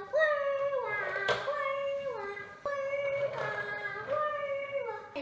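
A child's voice imitating a two-tone fire-engine siren: a held high note dropping to a lower one, repeated about five times.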